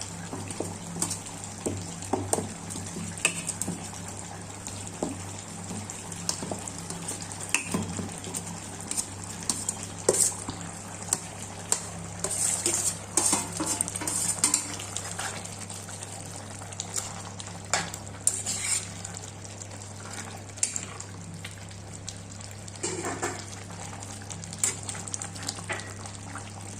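A metal spoon knocks and scrapes irregularly against a cooking pot as boiled potatoes are mashed and stirred into a simmering chickpea curry to thicken its gravy. A steady low hum runs underneath.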